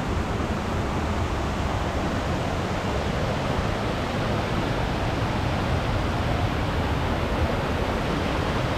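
Waterfall on the Clare River, swollen by recent rain, rushing with a steady, unbroken roar.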